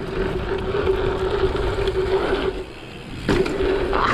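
Dirt-jump bike rolling fast over packed dirt, with tyre noise, a steady whir and wind buffeting a helmet-mounted microphone. The whir drops out about two and a half seconds in and returns, with a short knock just after three seconds.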